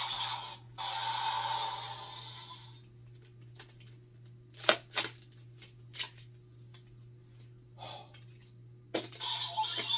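Electronic sound effects and music from a Kamen Rider toy blaster for the first few seconds, then sharp plastic clicks as the toy is handled, the loudest two close together near the middle. The toy's electronic music starts again near the end.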